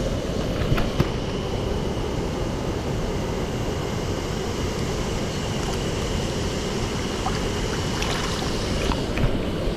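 Mountain stream water rushing steadily over rocks, with a couple of small clicks about a second in.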